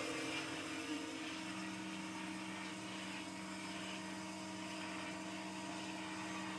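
Tsune TCB-400G automatic band saw running, a steady machine hum with several fixed tones. The tones shift about a second and a half in.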